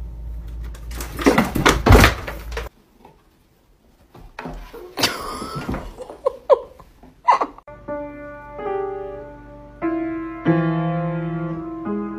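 A few knocks and thumps, then from about eight seconds in, piano notes struck one or two at a time at uneven moments as a cat steps on the keys, each note ringing on.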